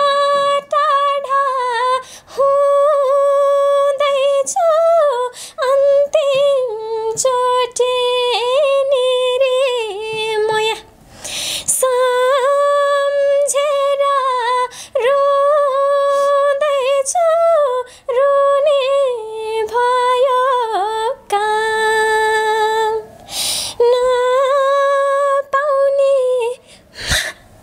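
A young woman singing unaccompanied, long held notes in phrases with short breaks between them; the singing breaks off near the end.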